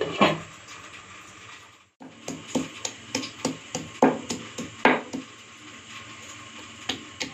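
A glass lid clinks onto a metal pot, then a stone pestle pounds garlic cloves in a stone mortar: a run of sharp knocks at about three a second, with two more near the end.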